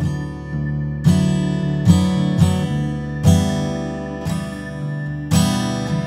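Background music: strummed acoustic guitar chords, a new chord struck about once a second and left to ring.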